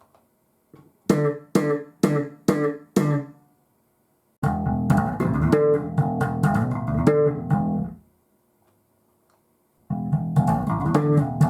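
Electric bass guitar played through an Ampeg bass combo amp: about six separate plucked notes with sharp attacks, then a busy run of notes, a pause of about two seconds, and another busy phrase near the end.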